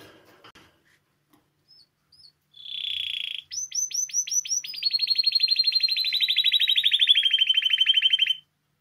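Spanish timbrado canary singing: a few faint chips, then a short buzzy note, a run of quick downward-sweeping notes, and a long fast rolling trill that slowly falls in pitch before stopping near the end.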